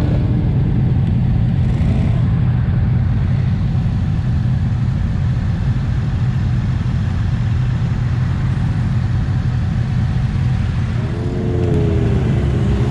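A group of stopped motorcycles idling, including a Honda NC750S, making a steady low engine rumble. Near the end one engine is revved, its pitch dipping and then rising.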